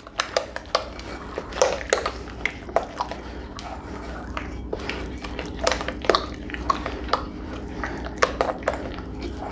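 A utensil stirring a thick sauce of condensed cream soup and sour cream in a large mixing bowl: irregular clicks and scrapes against the bowl, with a steady low hum underneath.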